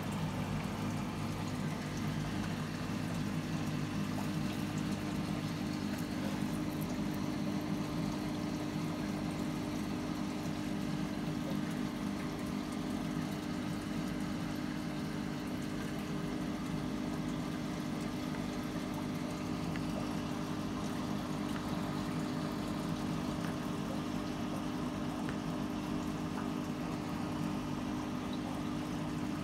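Aquarium filter pump running steadily, a low even hum with a haze of moving water over it.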